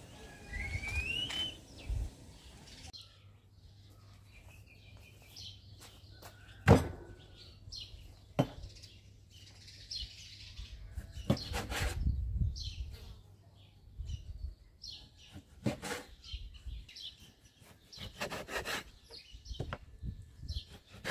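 Small birds chirping, with a rising call in the first couple of seconds, while sharp single knocks sound on a wooden cutting board at intervals. Near the end a cleaver chops through mutton on the board in a quick cluster of strokes.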